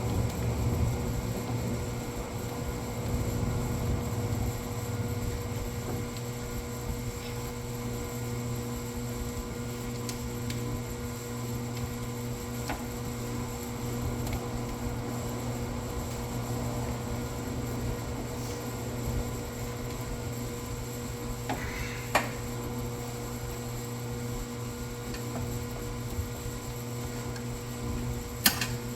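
Steady machine hum, with a few sharp clicks and knocks, one near the middle and a couple near the end.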